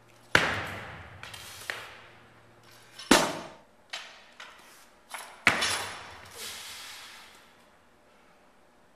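Loaded barbell with rubber bumper plates clanging on a wooden lifting platform: three loud bangs, each ringing out for a second or more, with smaller clanks between them, as the bar is dropped and then lifted and caught in a clean.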